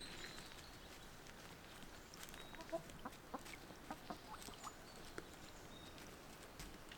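Chickens clucking faintly, with scattered small clicks and a few short high chirps.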